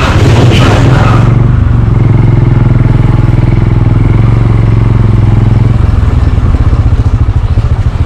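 Motorcycle engine running at low speed while the bike rolls slowly, a steady low drone. Rushing air noise drops away about a second in, and in the last couple of seconds the engine's beat turns uneven and pulsing.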